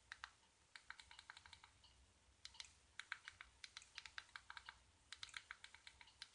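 Faint, irregular clicking of keys being pressed in quick clusters as text is typed in.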